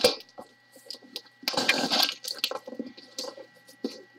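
Box cutter slitting packing tape on a cardboard box: a sharp click at the start, then a rasping stretch of slicing and tearing about a second and a half in, followed by lighter scrapes and rustles.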